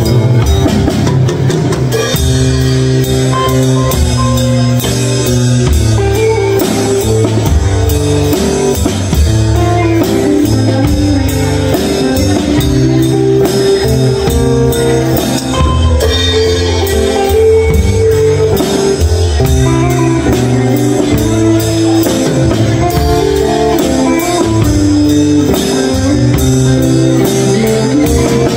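Drum kit played steadily in a groove, with rapid, even cymbal and drum strokes, along with other pitched instruments carrying changing notes underneath.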